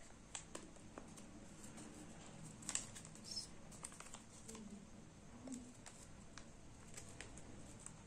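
Faint crinkling and rustling of origami paper being folded and creased by hand, with scattered small crackles; the sharpest comes a little under three seconds in.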